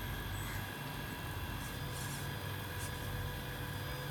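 Radio-controlled scale excavator's small electric motors whirring steadily as the boom and bucket move, with a few short faint hisses near the middle.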